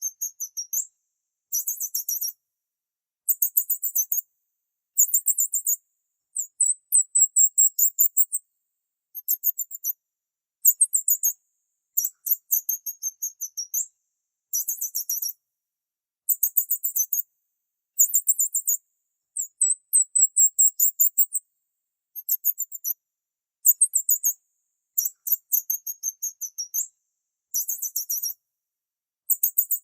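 Small birds chirping in short bursts of very high, rapid chirps, roughly one burst every second or two, with complete silence between them.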